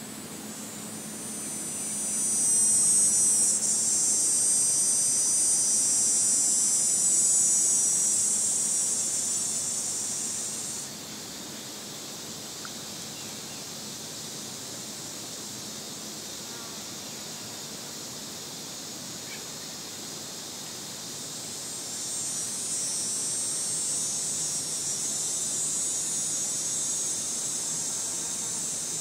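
Cicada calling: a loud, high, steady buzz that swells up about a second in and cuts off abruptly after about ten seconds, then a second, quieter cicada buzz starts near the end.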